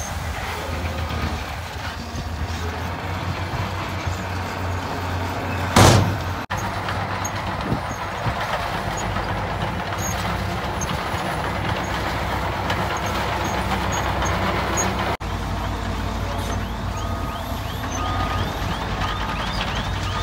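Diesel dump truck engines running steadily at a tipping site. About six seconds in there is a short, loud hiss of released air, and near the end a reversing alarm beeps at an even pace, a little over once a second.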